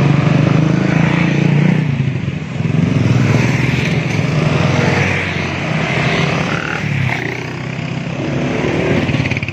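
Motorcycles riding past one after another with cars among them, their engines running in a steady drone of traffic that shifts in pitch as each bike goes by.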